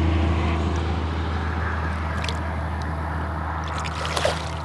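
Steady rumble of interstate highway traffic, with small water splashes and trickles beside a kayak about two seconds in and again near the end.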